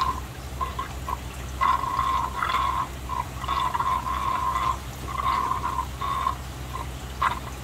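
Aquarium water gurgling and splashing in uneven spurts, over a steady low hum.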